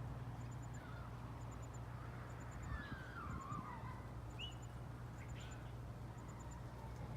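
Birds singing at dusk: a very high, thin three-pip call repeats a bit less than once a second, a warbled phrase slides down in pitch around three seconds in, and a few short chirps follow. A steady low hum runs beneath.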